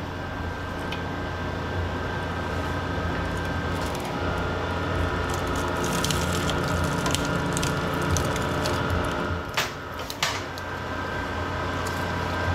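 Stator wrecker running with a steady hum while it pulls copper windings out of an AC compressor stator. Its note strengthens midway with crackling, and two sharp snaps come near the end of the pull, a little over half a second apart.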